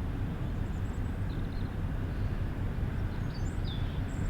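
Outdoor ambience: a steady low rumble with a few faint bird chirps, once after about a second and again past three seconds.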